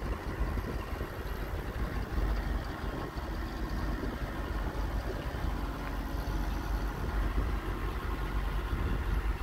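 1983 GMC 6500 grain truck's gasoline engine idling steadily.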